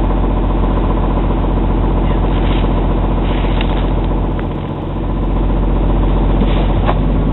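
Orion VII Next Generation hybrid city bus idling while stopped, heard from inside the passenger cabin: a steady engine hum with a low, even pulse, dipping briefly about halfway through.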